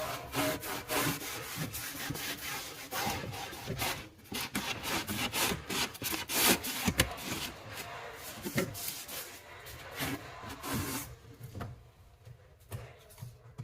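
Rubbing and scraping against wood in quick, uneven strokes that stop about 11 seconds in: hand work at the cabinet opening while an outlet box is fitted.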